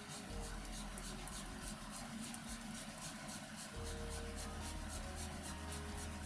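A long kitchen knife scoring the skin of a kinmedai fillet on a wooden cutting board, making a quick run of light, scratchy strokes. These are shallow cuts in the skin, made to keep the fish from shrinking and to let the marinade soak in.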